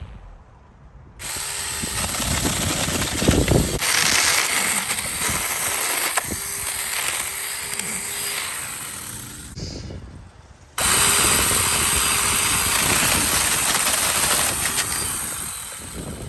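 Battery-powered Tomyvic 6-inch mini chainsaw running with a high electric-motor whine and cutting through branch wood. It starts about a second in, stops for about a second near the middle, then starts again abruptly.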